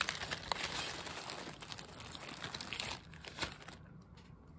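Thin plastic zip-top bags crinkling and rustling as they are handled, with small clicks. The rustle dies down about three seconds in, leaving a few faint clicks.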